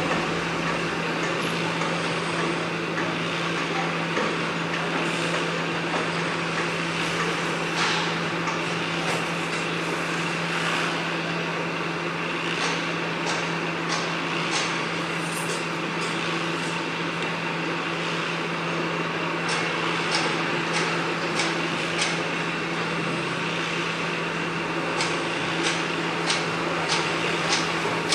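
Construction-site din: a steady low machine drone under broad noise. From about a third of the way in come runs of sharp hammer blows, one or two a second.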